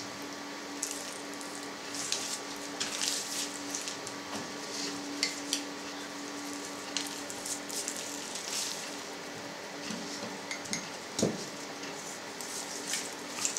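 Coarse salt sprinkled by hand over a raw pork joint on a cutting board: irregular light patters of falling grains and fingers scraping salt from a glass jar, heard over a faint steady hum.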